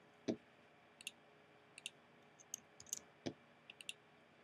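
Faint clicking of a computer keyboard and mouse: an irregular scatter of light key clicks while a short word is typed, with two duller, louder knocks, one just after the start and one a little past three seconds in.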